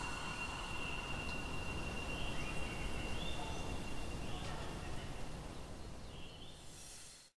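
Inline skates on 80 mm wheels rolling along an asphalt path, a steady rushing noise with wind on a microphone held low by the wheels. A bird gives a few short rising chirps throughout, and everything cuts off suddenly near the end.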